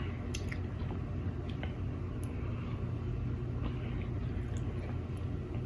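Steady low room hum with a few faint, soft clicks scattered through it.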